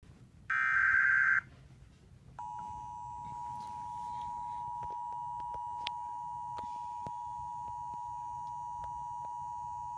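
Emergency Alert System tones: a loud burst of SAME header data just under a second long, then, about two and a half seconds in, the steady two-tone attention signal.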